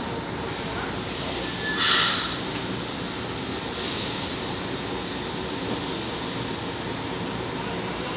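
São Paulo Metro fleet L train standing at the platform with its equipment humming steadily, letting out a sharp burst of air hiss about two seconds in and a softer one about four seconds in.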